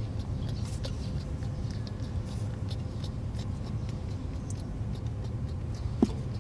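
Faint scattered scratching and ticking as a baby macaque grips and shifts along a steel rebar bar, over a steady low rumble, with one brief sharp sound about six seconds in.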